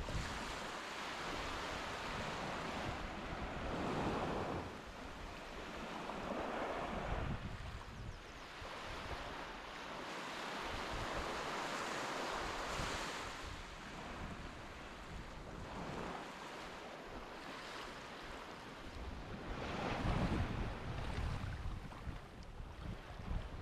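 Sea waves washing in on a beach, swelling and fading every few seconds, with wind buffeting the microphone.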